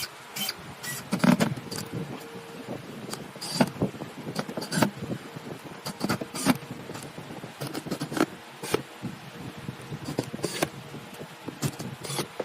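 Irregular knocks, taps and scrapes of wooden parts being handled and worked, a few of them loud, over a faint steady hum.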